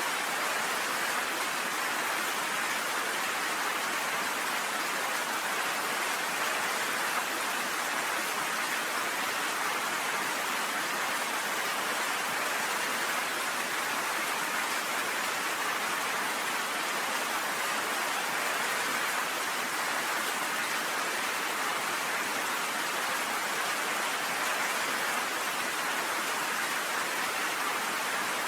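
Steady rain, an even hiss with no individual drops or thunder standing out.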